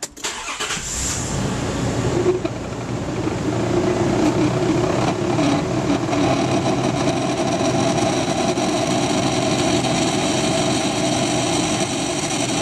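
2002 Nissan Pathfinder's AC blower motor running with a loud, steady whirring whine that builds over the first few seconds and then holds. The noise is the sign of a failing blower motor that is due for replacement.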